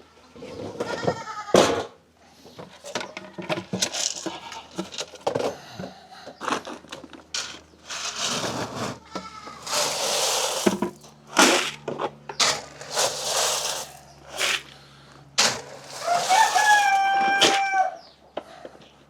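Barnyard chickens clucking and squawking in a string of short calls, with a rooster crowing one long call about three-quarters of the way through.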